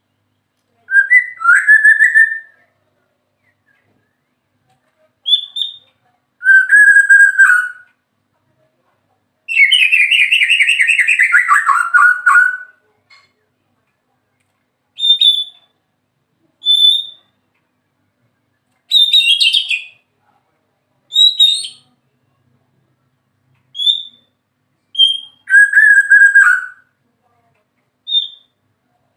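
White-rumped shama (murai batu) singing: separate loud whistled phrases with silence between them, among them a long trill falling in pitch about ten seconds in, and short high notes.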